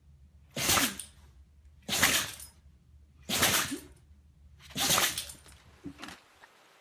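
An animal sneezing four times in a row, about once every second and a half, each sneeze a short sharp burst.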